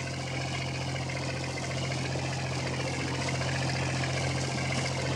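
A boat engine running steadily: a low drone with a fainter higher whine that wavers slowly up and down.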